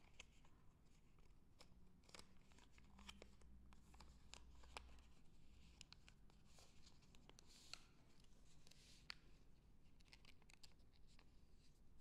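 Faint, scattered crinkles and soft ticks of small origami paper being creased and folded by hand.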